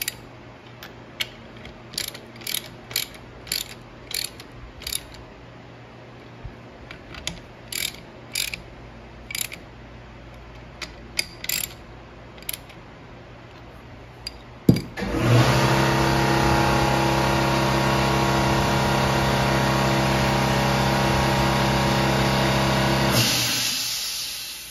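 A hand ratchet clicking in short runs as it snugs down the Dana 30 differential's bearing cap bolts. About fifteen seconds in, a loud steady machine hum starts suddenly, runs on evenly and fades away near the end.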